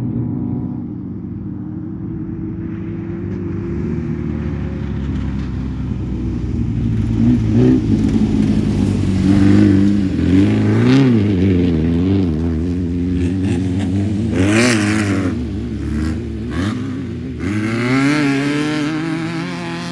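Air-cooled flat-four engine of a Class 11 stock Volkswagen Beetle desert race car revving hard, its pitch rising and falling unevenly, growing louder through the first half and staying loud to near the end.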